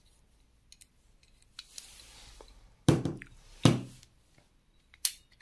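Handling of a copper-pipe airgun hammer with a bolt through its slot: light metallic clicks and a short scrape, then two dull knocks about three seconds in, and a sharp click near the end.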